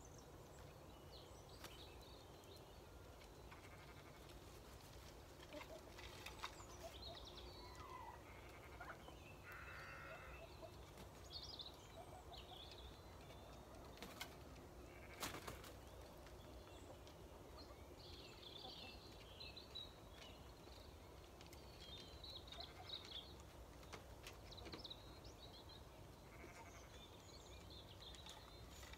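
Quiet dusk farmyard ambience: faint, scattered chirps of small birds, a soft bleat-like animal call about ten seconds in, and a couple of light knocks.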